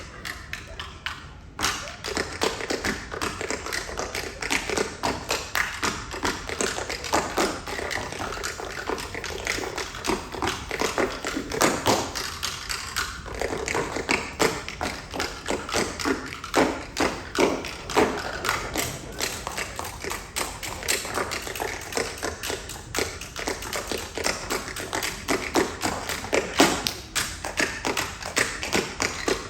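Tap shoes striking a stage in a fast, dense tap-dance routine, with some louder stomping strikes among the taps. The tapping picks up about a second and a half in, after a brief quieter moment.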